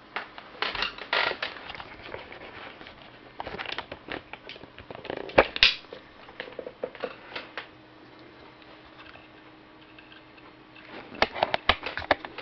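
Handling noise: scattered clicks, knocks and rustling from cables being handled and a hand-held camcorder being moved, in a few bursts about half a second in, around four to six seconds in, and again near the end.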